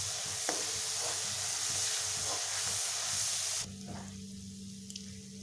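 Masala gravy of oil and spices sizzling in a kadhai while it cooks down until the oil separates. About three and a half seconds in the sizzle drops suddenly to a much quieter level, leaving a faint sizzle over a steady low hum.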